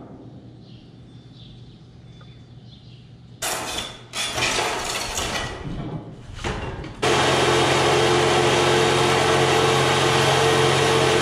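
DeWalt abrasive chop saw with a new cut-off wheel spinning up and cutting through steel oil-well pipe. It runs loud and steady from about seven seconds in, after a few seconds of short loud bursts of noise.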